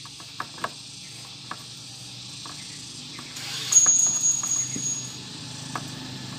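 A few light metal clicks of an L-shaped key working a bolt on the scooter's cylinder head, then a louder stretch with a single steady high whistle-like tone lasting about a second and a half, over a low engine hum that builds toward the end.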